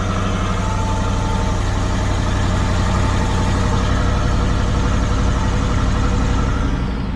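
BMW 550i's twin-turbo V8 idling steadily just after a cold-sitting start, running on a newly fitted aftermarket fuel pump control module (EKPM) that replaced a failing unit which made the car stall.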